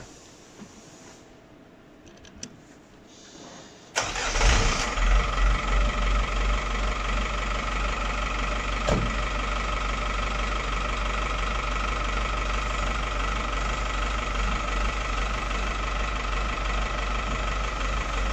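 A light truck's engine, which drives the truck body's hydraulic screen lift, starting about four seconds in with a few quick surges, then idling steadily with a steady high whine over it.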